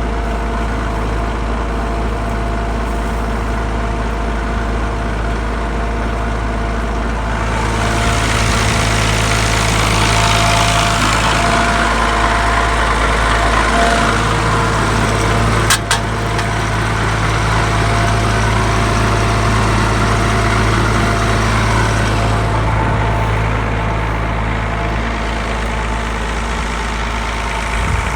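Engine idling steadily, warming up after a cold start. A noisier stretch runs through the middle, and there is one sharp click about halfway through.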